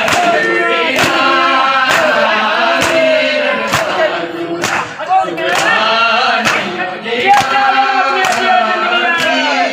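A noha (Shia lament) sung by a man over a loudspeaker PA, with a group of mourners joining in, while their chest-beating (matam) strikes a steady beat of about three blows every two seconds.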